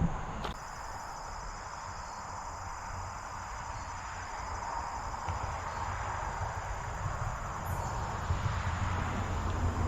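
Insects trilling steadily in a high, continuous, finely pulsed buzz, with a low rumble underneath.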